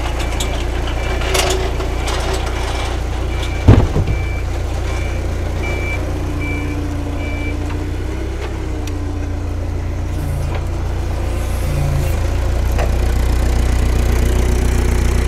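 Mitsubishi propane forklift running as it carries a heavy machine, its reverse alarm beeping steadily through the first half. A single loud clunk about 4 s in, and the engine gets louder near the end.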